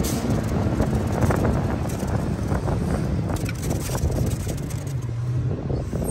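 Rear-loading garbage truck's diesel engine running as the truck drives along and pulls up to a stop, with a steady low rumble and a few short knocks.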